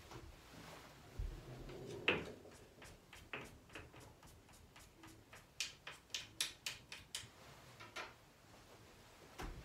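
Pool cue being handled and its tip chalked: a few scattered light knocks, then a quick run of about a dozen sharp clicks in the middle.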